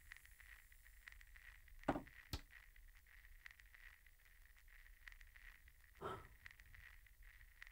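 Near silence with a faint steady high hum, broken by handling of a wooden puppet-stage cabinet: a soft wooden knock about two seconds in, as its front flap comes to rest, then a sharp click, and another soft knock about six seconds in, as a small wooden shutter is opened.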